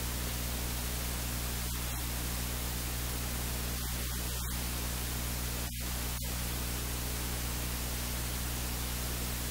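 Steady hiss of recording noise with a low electrical hum underneath, unchanging throughout.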